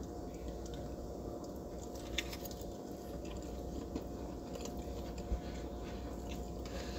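Faint chewing of a mouthful of sushi bake wrapped in nori, over a steady low hum, with a couple of small clicks.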